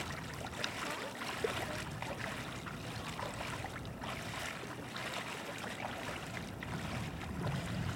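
Bare feet wading and splashing through shallow floodwater covering a street, the steps irregular over a steady wash of water noise.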